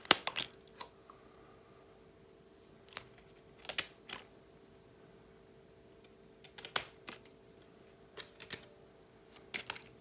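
Scissors snipping the leaves of a lemon cutting to trim them smaller: scattered sharp snips and clicks, a few at a time, over a faint steady hum.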